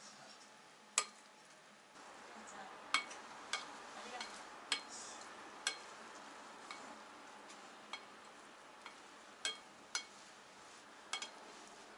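Plastic rice paddle stirring and folding cooked mixed rice in a pot: a soft scraping rustle of rice, with irregular sharp clicks, about one a second, as the paddle knocks against the pot's sides and rim.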